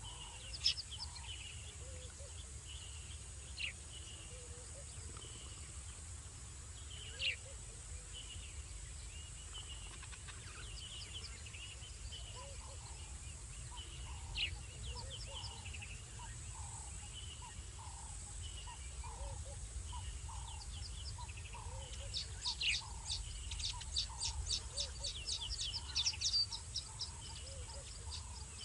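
Night-time bush chorus: a steady high insect drone under repeated short chirping calls and occasional falling whistles, with a burst of rapid chirps from about 22 seconds in. No lion roar is heard.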